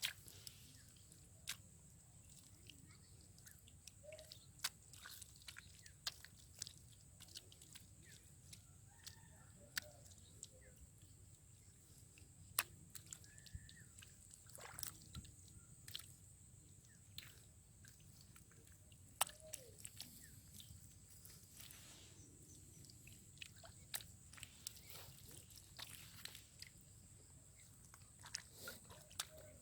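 Faint, irregular clicks and taps with light water sloshing, over a steady thin high whine.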